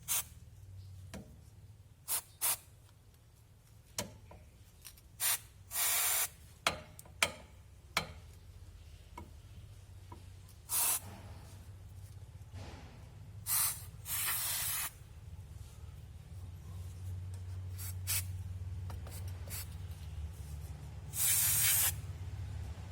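Aerosol lubricant spray hissing in about nine short bursts, the longest near a second, applied to rear drum brake parts, with light clicks and taps between the sprays.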